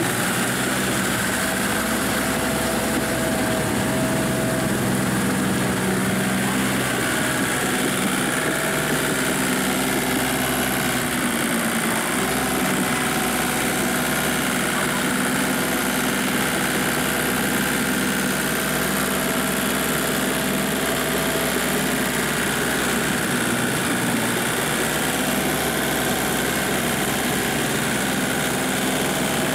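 Small Kubota tractor's diesel engine running steadily while it pulls a rotary tiller through flooded paddy mud.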